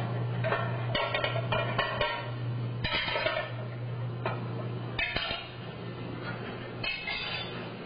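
Kitchen clatter: dishes and utensils clinking and knocking at irregular moments over a steady low hum that stops near the end, with background music.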